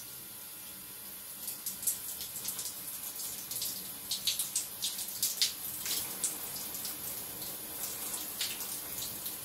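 Water draining from a handheld showerhead being changed on its metal hose, dripping and splattering onto a tiled shower floor. Irregular sharp splashes start about a second and a half in over a steady hiss.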